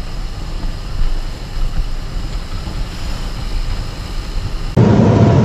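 Wind and road rush from a motorcycle on the move, the engine barely heard beneath it. Nearly five seconds in it cuts suddenly to a much louder, steady engine running.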